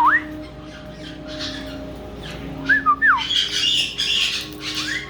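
Caique parrot whistling while it bathes: clear sliding whistles, one dipping then rising at the start, a rise-and-fall pair about three seconds in, and another beginning near the end, with a short rustle between them.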